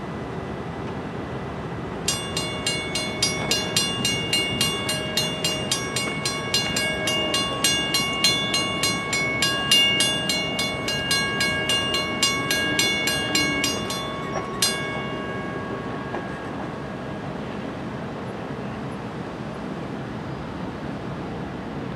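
WCH mechanical railroad-crossing bell ringing with rapid, even strokes as the crossing signals activate. It stops abruptly about 15 seconds in, and the last strike rings on and fades.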